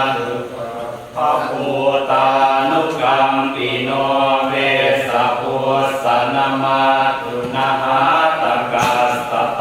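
Pali Buddhist chanting (suat mon), recited in a steady, even-pitched chant, with a short breath break about a second in.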